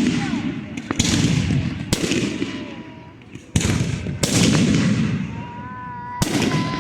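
Fireworks going off: about five loud, sharp bangs a second or so apart, each trailing off in a long rolling echo.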